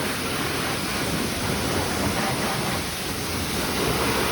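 Self-serve car wash high-pressure wand spraying water, a loud, steady hissing rush.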